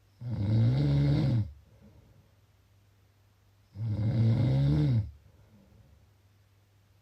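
Snoring: two loud snores, each a little over a second long, about three and a half seconds apart, with a low buzzing pitch that rises and falls slightly within each snore.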